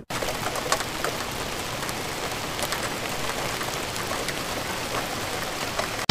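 Rain falling steadily, an even patter with scattered sharp drop ticks, following a thunderclap.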